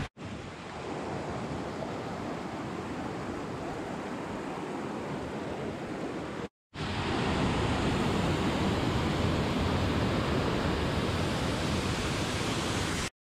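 Steady rush of a rocky river's rapids and waterfall, with no distinct events. A brief cut about halfway in, after which the water noise is louder and deeper.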